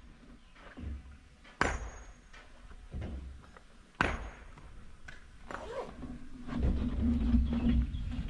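Kobelco excavator working: two sharp, ringing metallic clanks of the bucket and linkage, about two and a half seconds apart, over a low drone of the engine and hydraulics that swells louder near the end.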